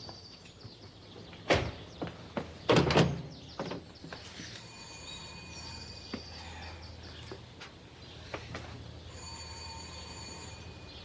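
Door thuds and knocks, the loudest about three seconds in, then a steady high ringing tone that sounds twice, for a second or two each time.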